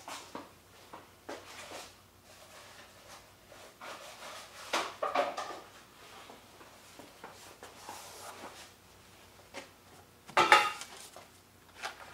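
Scattered handling noises: rustles, knocks and light clinks, with louder bursts about five and ten seconds in. Near the end, plastic bags of new hydraulic lifters are handled on the bench.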